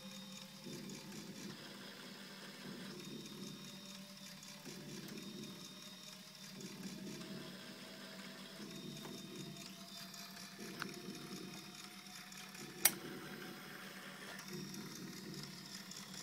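Small LEGO electric motors of a model drill press running after a restart, a faint whirring with a slow rhythmic pulsing and a thin whine that slowly rises in pitch. A single sharp click about 13 seconds in.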